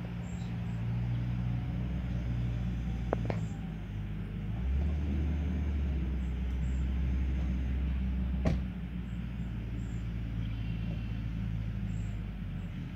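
Low, steady rumble of a motor vehicle's engine running, its pitch shifting about five seconds in and again near nine seconds, with a single sharp click about eight and a half seconds in.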